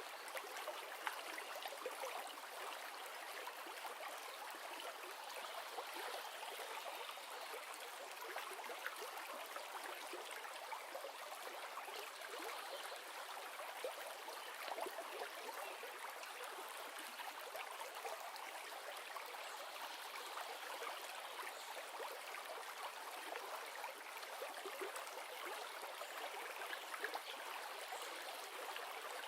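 River water flowing: a steady rush with fine splashing and trickling, with no deep rumble.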